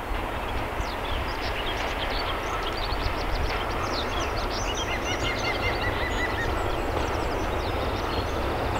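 Diesel locomotive approaching under power, its engine a steady rumble growing slowly louder. Birds chirp throughout.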